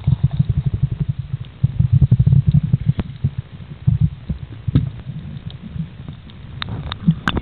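Muffled sound picked up underwater by a camera in its waterproof case: low, irregular thumping of water moving against the case, with scattered faint clicks.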